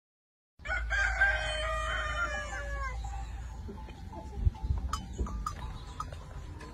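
Rooster crowing once, a long call of about two seconds that drops in pitch at the end, over steady rain noise. A few light knocks follow later.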